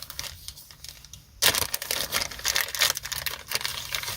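Packaging crinkling and rustling as it is handled, louder from about a second and a half in.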